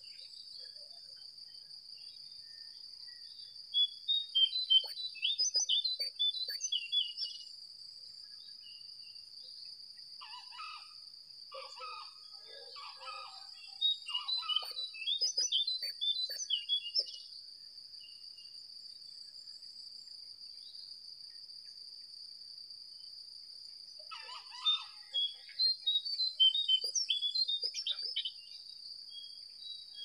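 Songbirds singing in quick chirpy phrases in three bursts: a few seconds in, through the middle, and near the end. Beneath them runs a steady high insect drone.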